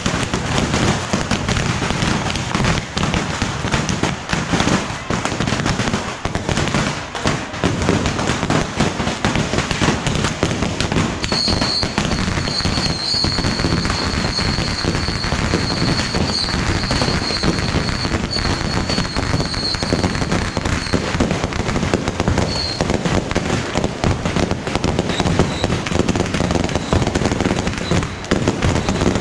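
Continuous dense crackling and popping of a massed fireworks barrage, the rapid-fire bottle rockets and firecrackers of the Yanshui beehive rocket launch. A steady high whistle runs through the middle of the barrage.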